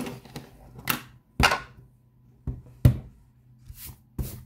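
About six short, sharp taps and knocks on a craft table as a rubber or clear stamp and a paper card are handled for stamping. The loudest knock comes a little before three seconds in, and two of them trail off in a brief rustle of card.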